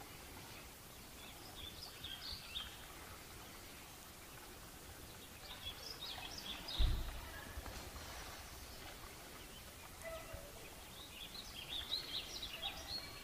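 Songbirds chirping in short bursts over quiet outdoor background noise, with a single brief low thump a little past the middle.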